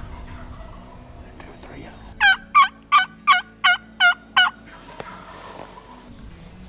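Seven loud turkey yelps in a quick, evenly spaced run, about three a second, each note a short rising-and-falling cluck.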